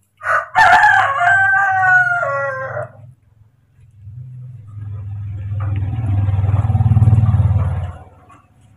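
A rooster crows once: a long, drawn-out call that drops in pitch at the end. A few seconds later a low rumble swells up and then stops.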